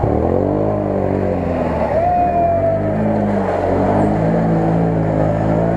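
BRP Can-Am quad bike engine revving up and down as it churns through deep mud, its pitch rising and falling in the first second or so, then running on at a steadier note.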